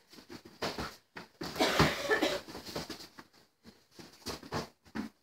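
Taekwondo sparring: scattered thumps and scuffs of feet and padded kicks and punches on foam mats. A louder cluster of hits comes about a second and a half in, mixed with a short vocal sound such as a grunt.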